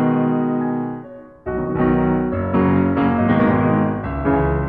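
Background piano music: a chord rings and fades, then fuller chords come in about a second and a half in.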